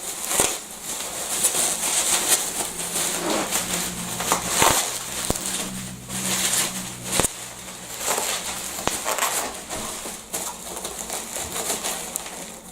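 Packing material being handled and pulled apart, with continuous crinkling and rustling and a few sharp clicks, as a boxed bass guitar is unwrapped.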